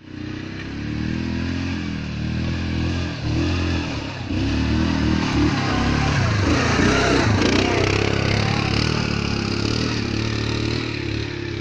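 Off-road vehicle engine revving hard under load on a climb, its pitch rising and falling over and over, most rapidly about halfway through.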